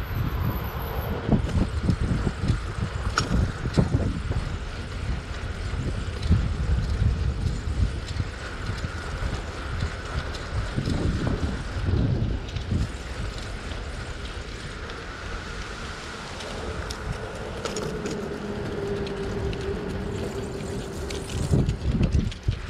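Wind buffeting the microphone of a camera riding along on a moving bicycle, a gusty rumble, with the steady hum of the bicycle's tyres rolling on pavement.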